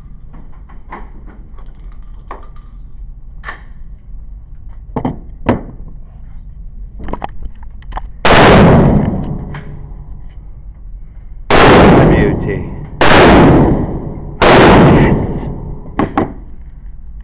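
Four loud gunshots from a .22 revolver, each followed by a long echoing tail in the range. The first comes about eight seconds in and the other three follow over the next six seconds, at uneven spacing. Lighter clicks and knocks of handling come before them.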